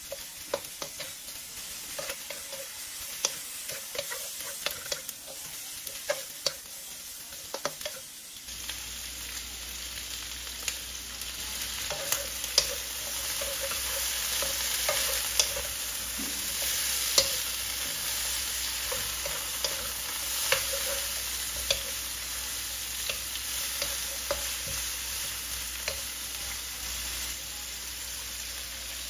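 Chicken feet with onion and ginger sizzling in oil in a nonstick wok while a wooden spatula stirs them, with frequent light knocks and scrapes of the spatula on the pan. The sizzle grows louder about halfway through.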